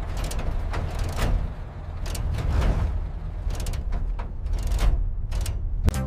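Small model construction machine running: a steady low motor hum with irregular clicking and scraping knocks.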